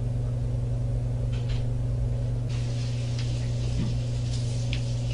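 Steady low hum and rumble of the interrogation-room recording, with a few faint knocks and rustles of movement in the room.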